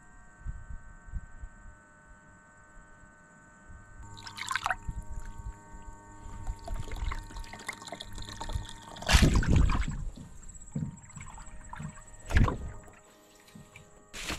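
Water sloshing and splashing in a tarp-lined open-air bath as a person shifts about in it: a few separate splashes, the loudest about nine seconds in, with quieter lapping between.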